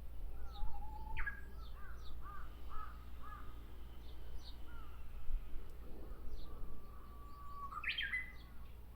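Japanese bush warbler (uguisu) singing: a long whistled note that breaks into a quick upswept phrase, the classic 'hoo-hokekyo', then a run of short arching notes. Near the end comes a second long note ending in another upswept flourish.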